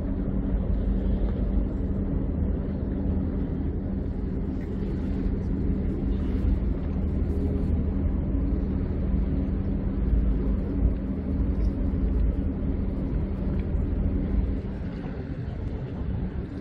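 Steady low boat-engine hum with rumble on the harbour, holding one even tone. It eases off about two seconds before the end.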